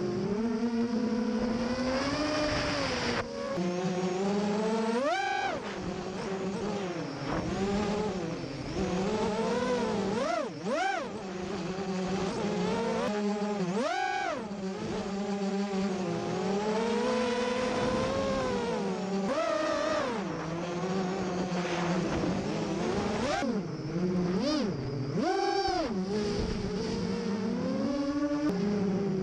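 FPV quadcopter motors and propellers whining as the drone flies, the pitch rising and falling with throttle, with several sharp surges (near 5, 10, 14, 20 and 25 seconds in).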